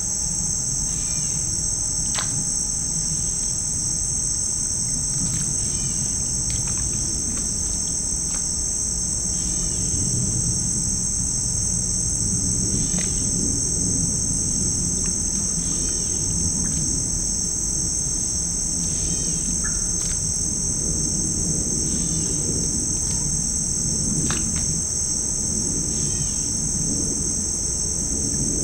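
Continuous high-pitched insect chorus of crickets trilling without a break, over a low rumbling background, with a few faint ticks and short chirps scattered through it.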